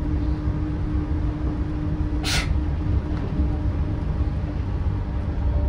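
Yurikamome rubber-tyred automated guideway train in motion, heard from inside the car: a steady low rumble with a steady hum, and a brief hiss about two seconds in.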